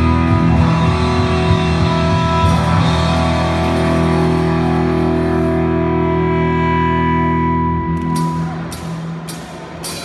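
Live rock band with electric guitar and bass holding a sustained, ringing chord that fades out about eight seconds in, followed by a run of sharp hits near the end.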